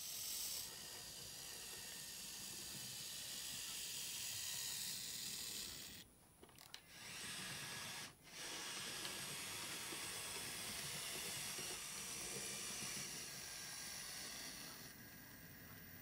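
A steady hiss, dropping away briefly about six seconds in and again at about eight seconds.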